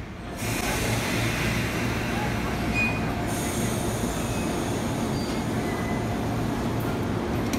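JR 185 series electric train coming slowly into a station platform: a steady running noise from its wheels and motors, with a couple of faint, short, high squeaks from the wheels. The sound jumps up about half a second in.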